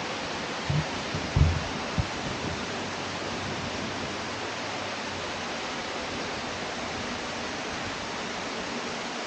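Steady rush of falling water from a waterfall. A few short low thumps come about a second in.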